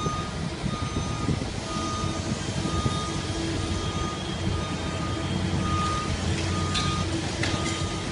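Reversing alarm beeping about once a second over the steady running of a demolition excavator's diesel engine, with a brief clatter of breaking material about seven seconds in.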